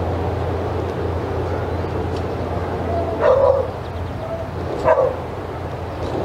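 A dog barks twice, about a second and a half apart, over a steady low hum.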